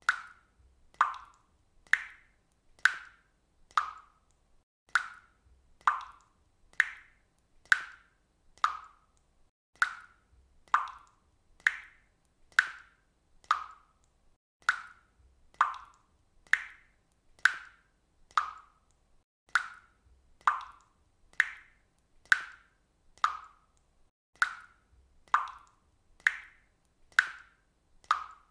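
Water dripping steadily from a faucet, one drop about every second, each a short pitched plop.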